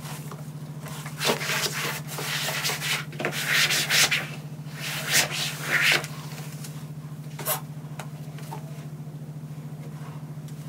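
A cloth rubbing back and forth over a painted windowsill ledge in several bursts of scrubbing, which stop about six seconds in; a single short knock follows a little later.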